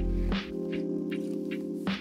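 Background music: an electronic track with sustained synth chords and a steady beat, its bass dropping out about half a second in.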